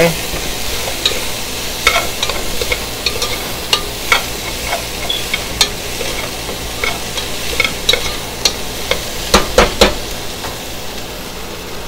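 Diced onions and bell peppers sizzling in hot oil in a pot while a utensil stirs them, with many short scrapes against the pot's bottom and a few louder scrapes near the end. The scraping lifts the browned bits of seared meat off the bottom.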